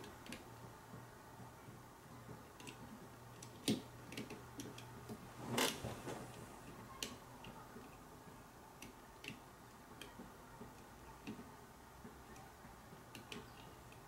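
Faint, irregular small metallic clicks and ticks of a wire pick lifting the thin steel levers inside a 5-lever lock, with a curtain pick holding the tension. Two clicks stand out as louder, about four and six seconds in.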